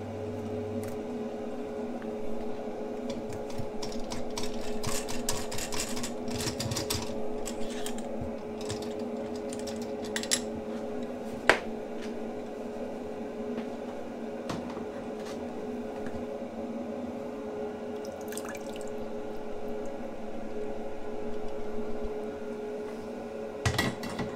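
Grainfather's recirculation pump running with a steady hum while wort pours from the return pipe and trickles back down into the mash. There is a single sharp tap about halfway through and a few clinks near the end.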